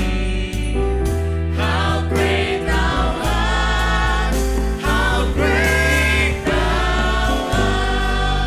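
Gospel worship song: voices singing sustained lines over a band with a heavy, held bass.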